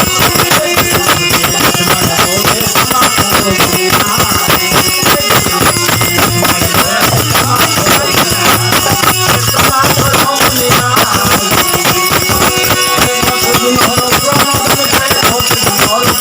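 Loud bhajan music, an instrumental passage without singing, carried by fast, dense percussion.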